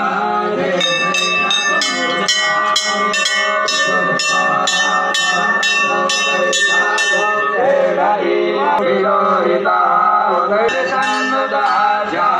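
Temple bell rung rapidly, about three strikes a second with a lingering ring, stopping about seven and a half seconds in, over steady chanting voices.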